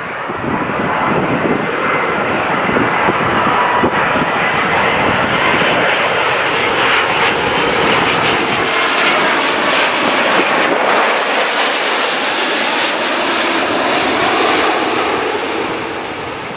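Airbus A330 twin-jet airliner on final approach passing low overhead: a jet rumble with a whining tone that builds, is loudest from about 8 to 14 seconds in, then drops in pitch and fades as the aircraft moves away.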